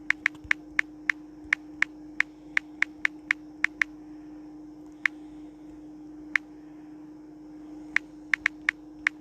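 Key-press clicks from a phone's on-screen keyboard as a sentence is typed: a quick run of about fifteen clicks in the first four seconds, then single clicks with gaps and a short cluster near the end. A steady low hum runs under them.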